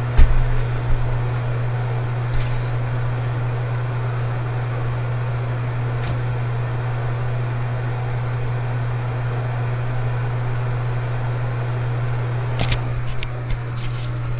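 A steady low mechanical hum, with a knock just after the start and a cluster of sharp clicks and knocks near the end.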